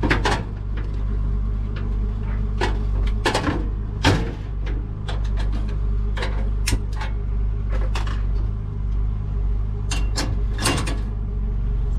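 Scattered clicks and knocks of a two-burner gas stove being lit with a long-nosed lighter, its knob turned and the lighter sparked at a burner, then the clank of a steel pot of water set down on the stove's metal grate near the end. A steady low hum runs underneath.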